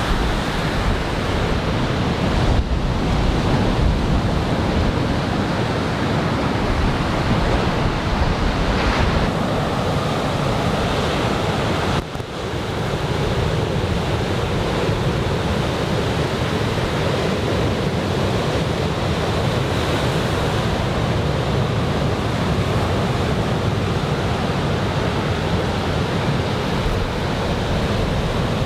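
Large typhoon-swell surf breaking on the beach: a steady rush of waves with wind on the microphone. The sound dips sharply for a moment about twelve seconds in, then carries on.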